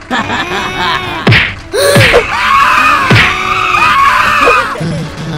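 Cartoon-style comedy sound track: music with high, squeaky voice-like sounds that rise and fall again and again, and a few sharp hits with quick downward swoops.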